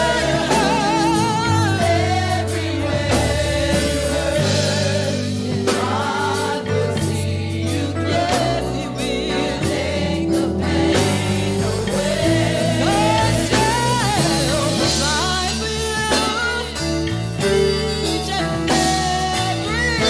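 Gospel music: a singer with backing voices held over sustained organ-like bass chords.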